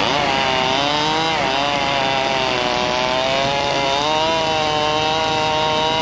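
Chainsaw engine running at high revs while cutting a fallen tree. Its pitch dips briefly twice as the chain bites into the wood, then recovers.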